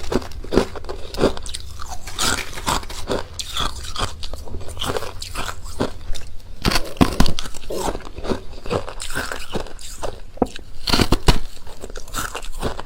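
Close-miked crunching and chewing of frozen frost: a quick run of irregular, crisp crunches as the ice is bitten and chewed.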